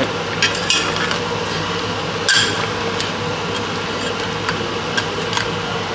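A steady hum with a low tone, broken by a few sharp clicks and knocks, the loudest about two and a half seconds in.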